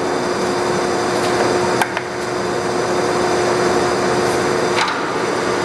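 Large Monarch Series 90 heavy-duty engine lathe running steadily at low spindle speed in threading feed, a loud even machine drone with a steady tone from its 40 HP main motor and drive. Two short sharp clicks, about 1.8 s and 4.8 s in.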